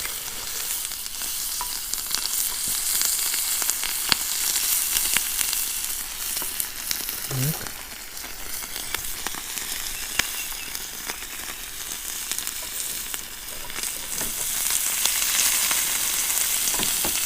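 Slices of pork fat (salo) sizzling in a hot skillet: a steady high hiss with scattered sharp pops and spits, growing fuller near the end.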